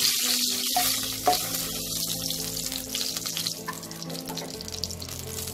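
Hot mustard oil sizzling in a kadai as a fried hilsa fish head is lifted out with a spatula; the sizzle is loudest at first and dies down steadily once the pan is emptied, with a single light tick just over a second in.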